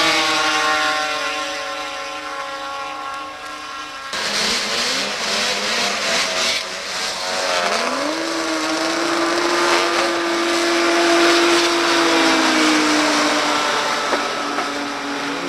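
Two-stroke snowmobile engines at full throttle on drag runs. A held high engine note fades over the first few seconds. About four seconds in, a sudden louder rush of engine noise starts. Later an engine's pitch climbs and holds, and another climbs near the end.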